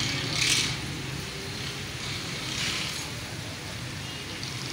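Steady roadside traffic noise with a low hum underneath, and two brief hisses, about half a second in and again near three seconds in.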